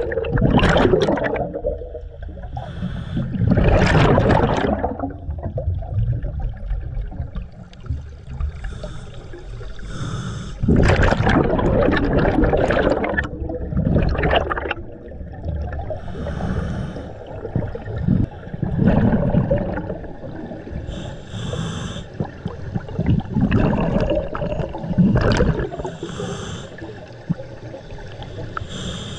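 Scuba regulator breathing heard underwater: loud rushing bursts of exhaled bubbles alternating with fainter hissing inhalations, over several breaths.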